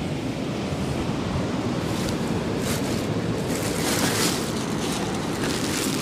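Steady rush of surf breaking on a beach, with wind on the microphone.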